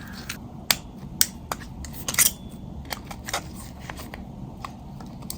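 Irregular sharp clicks and small snaps of the Nokia 3350's plastic body frame being pried open by hand, the housing resisting.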